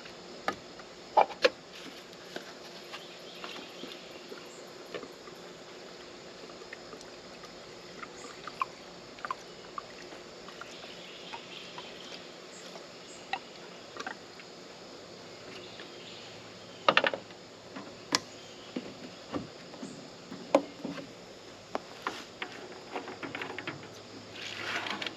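Scattered light clicks and taps over a quiet background, with a cluster of sharper clicks about two-thirds of the way through and a brief rustle near the end; no engine is running.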